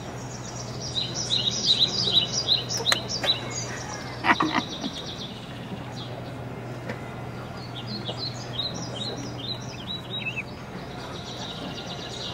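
A small bird chirping in two quick twittering runs, one near the start and one about two-thirds of the way in, over a steady low hum.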